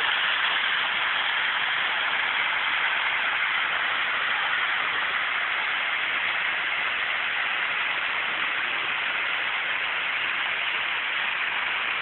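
Steady rushing of a large waterfall, the falling water making an even, unbroken hiss.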